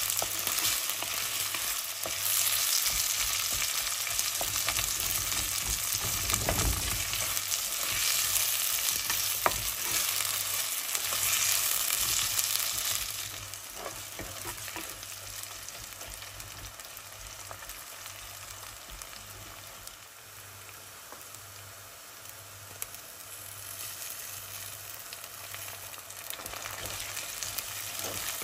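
Sliced onions sizzling in hot oil and ghee in a clay pot, stirred and scraped with a wooden spoon, with a few sharp knocks of the spoon. The sizzle is louder for the first half and drops about halfway through.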